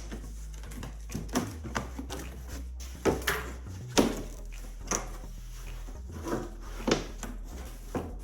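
Cardboard shipping boxes being handled and opened: a string of knocks, thumps and scrapes, the loudest about three and four seconds in.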